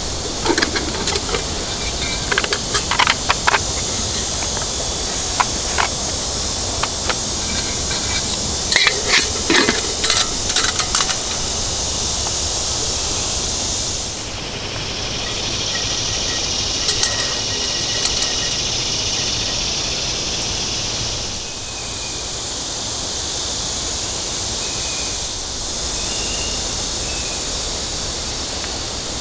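Titanium bush pot and its lid clinking and rattling as they are handled and drawn out of a mesh stuff sack: a string of light metallic clicks during the first ten seconds or so, over a steady high hiss.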